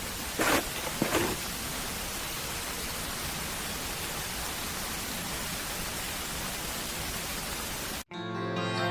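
A steady, even hiss like static, with two short louder sounds about half a second and a second in; it cuts off abruptly near the end and plucked-string music starts.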